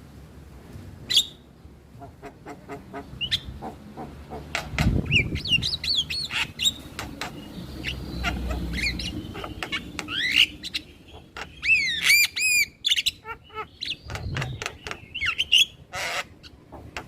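Male Javan myna calling: a quick, jumbled run of harsh squawks, sharp clicks and short whistled notes that sweep up and down in pitch.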